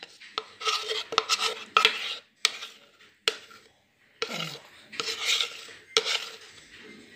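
A metal spoon scraping and knocking against the inside of a plastic blender jug, scraping out a thick blended mixture: a run of rasping strokes with sharp clicks, a short pause about halfway, then more strokes.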